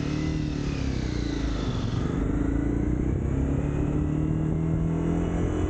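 Sport motorcycle engine running while riding, its revs rising and dipping in the first couple of seconds and then holding steady.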